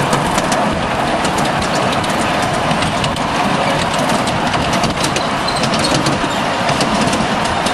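Ride-on live steam miniature locomotive running along the track: a steady rush of noise with many sharp clicks of the wheels on the rails.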